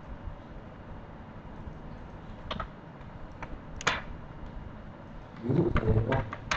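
Computer keyboard keystrokes and mouse clicks: a couple of single sharp clicks, then a quick run of clicks near the end, over a steady low background hum.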